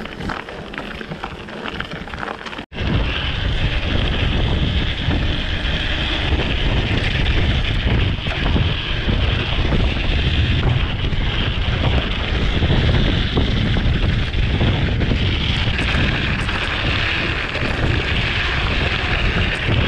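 Wind buffeting the handlebar camera's microphone as a mountain bike rides along a forest dirt track, with a steady low rumble. The sound cuts out briefly about three seconds in, and the wind noise is louder after that.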